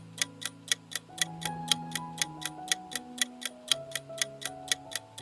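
Clock-like ticking sound effect, evenly paced at about four ticks a second, over soft sustained background notes: a countdown timer running while a quiz question waits for an answer.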